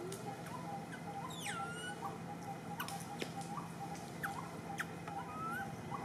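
Small animal calls: a rapid, steady run of short chirps underneath, with scattered short rising squeaks and one high whistle falling steeply about a second and a half in.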